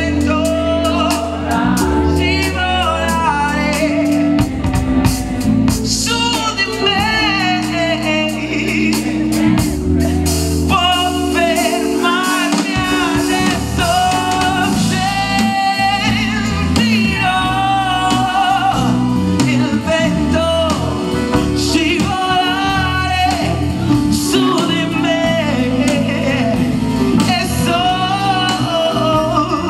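Live band music with a male lead singer singing into a microphone, his voice sliding and wavering in long runs over a steady bass and drums.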